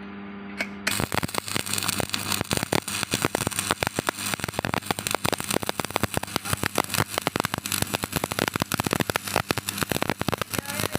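Stick (arc) welding: the arc strikes about a second in and then crackles and spatters steadily, a dense run of irregular sharp clicks. Under it is a steady electrical hum that is heard alone before the arc starts.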